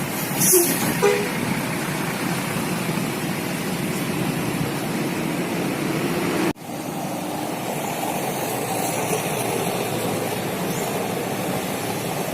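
Steady noise of bus engines and traffic, with a brief high hiss about half a second in. The sound cuts out for an instant just past the middle, then the same steady noise resumes.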